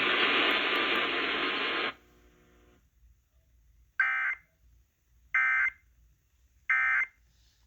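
Emergency Alert System end-of-message (EOM) data tones over a radio: three identical short, harsh buzzing bursts about a second and a half apart, signalling the end of the alert. Before them, a steady hiss of radio audio cuts off sharply about two seconds in.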